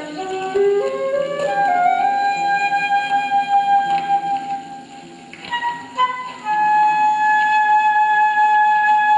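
Solo concert flute with electronics. The flute plays a quick rising run into a long held note, drops away briefly around five seconds in, then plays a few short notes and settles on another long held note, over a steady low electronic drone.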